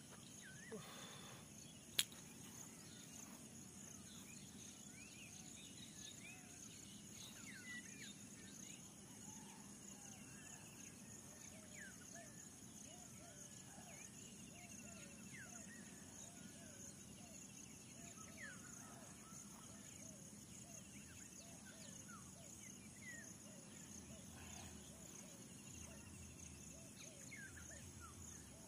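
Faint open-field ambience: a steady high insect buzz with many short bird chirps scattered throughout, and a single sharp click about two seconds in.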